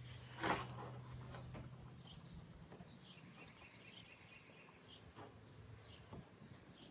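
Faint outdoor background with a bird singing a rapid high trill from about three to four and a half seconds in, and a single knock about half a second in.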